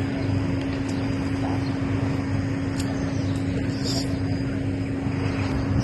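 Steady low hum with one constant tone over an even background rumble, unchanging throughout, with a few faint ticks.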